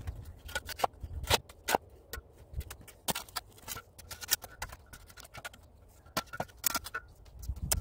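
Hand tool scraping and knocking at packed soil and cement blocks: a run of short, sharp, irregular scrapes and knocks.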